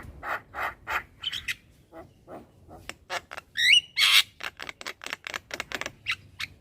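Young Javan myna chattering in a rapid run of short harsh notes. A rising whistled note comes a little past the middle, followed by a loud harsh squawk.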